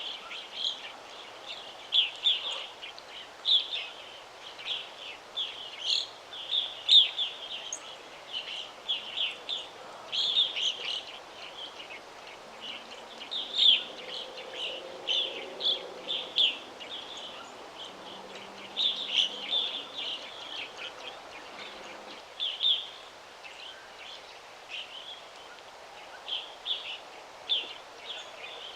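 Several small songbirds chirping and twittering in quick, high-pitched calls that overlap one another almost without pause, over a soft steady background hiss.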